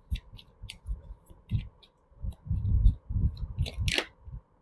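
Tarot cards being shuffled and handled: a string of crisp, irregular card clicks over soft low thuds, with one louder snap near the end.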